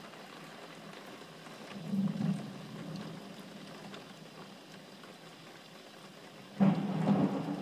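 Heavy rainstorm heard through a closed window pane with the phone held against the glass: a steady low hiss of rain, a brief low swell about two seconds in, and a sudden, much louder low rumble near the end.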